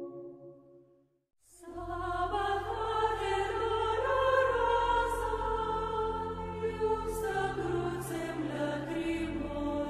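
Soft ambient music fades out. After a brief silence a choir starts singing slow, sustained sacred-style music over a steady low bass.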